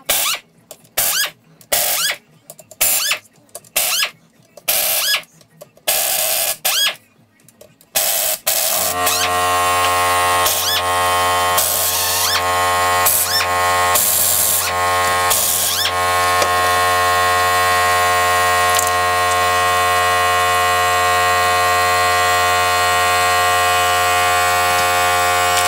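Short bursts of a hand-held power screwdriver spinning bolts out of a motorcycle engine's side cover, about one a second, each rising in pitch as the motor spins up. About eight seconds in, a steady hum starts and carries on, with a few more bursts of the driver over it.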